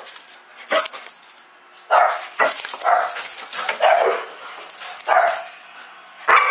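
Excited dog barking in short bursts, about ten in all with a brief pause near the start: an excited greeting of her returning owner.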